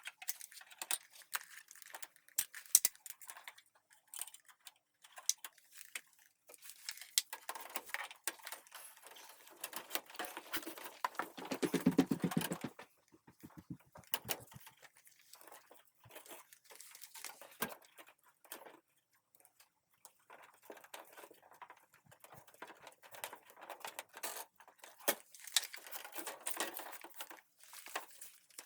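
Handling noises: scattered clicks and knocks with stretches of rustling, and a denser buzzing rattle about twelve seconds in.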